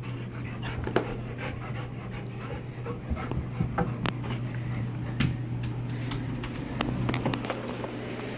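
Two excited dogs panting, over a steady low hum, with scattered sharp clicks throughout.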